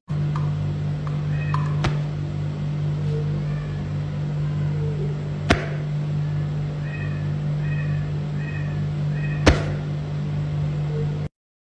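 A steady low machine-like hum that holds one pitch, with three sharp clicks about four seconds apart and faint short high chirps repeating near the end; it cuts off suddenly just before the end.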